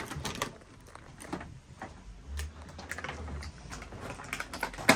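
Scissors snipping at a cardboard toy box, with scattered short clicks and rustling as the box is handled.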